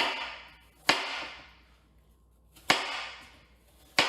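Kitchen knife cutting through apple quarters and striking a cutting board: four sharp knocks, each fading away over about a second.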